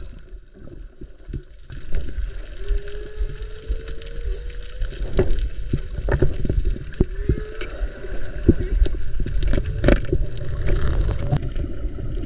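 Whale song heard underwater: a long, thin, rising moan and a shorter moan later, over the rumble of water movement and scattered crackling clicks.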